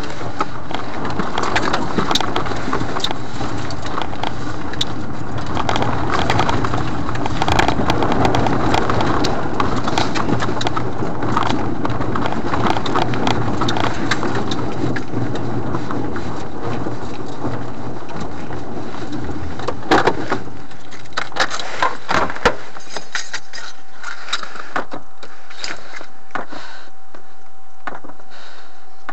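Engine and road noise inside a vehicle's cab as it drives and then pulls in and stops. About two-thirds of the way through the low rumble cuts off, leaving a few scattered clicks and taps.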